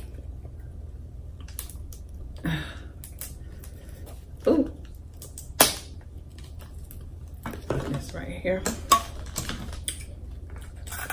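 King crab leg shell cracking and snapping as it is pulled apart by hand, a scattered run of sharp clicks with the loudest crack about halfway through. Near the end, kitchen scissors click as they cut into the shell.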